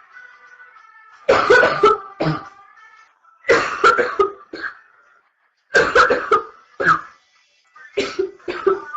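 A young woman coughing in four fits of several coughs each, about two seconds apart: the chesty cough of a chest cold in its early stages.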